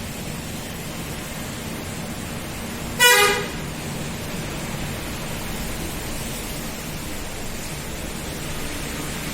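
A single short horn toot about three seconds in, loud and pitched, over a steady low background hum.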